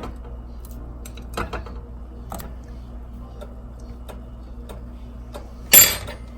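Scattered light clicks and knocks as shrimp are laid one at a time into a pan of hot broth, with one louder, short clatter near the end, over a steady low hum.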